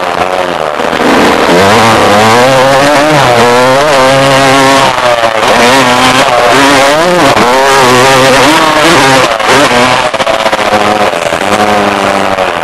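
Motocross dirt bike engine heard up close from on board, revving hard, its pitch rising and falling again and again with throttle and gear changes through corners and jumps.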